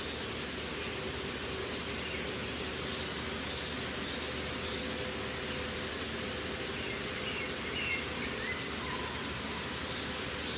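Steady outdoor hiss with a faint low hum, and a few faint high bird chirps about seven to nine seconds in. No distinct splashes or bear calls stand out.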